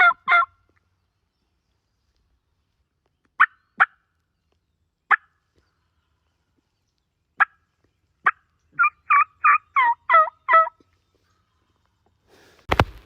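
Wild turkey gobbler gobbling: a fast rattling gobble at the start and another run of about seven quick notes about nine seconds in. Single short clucks are spaced between the gobbles. Near the end comes one loud, sharp shotgun shot.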